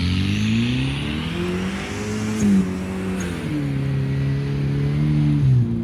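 Engine of a turbocharged Nissan Datsun 720 pickup revving hard as the truck is driven. The pitch climbs for about two and a half seconds, then steps down to a steadier lower note, and drops again near the end.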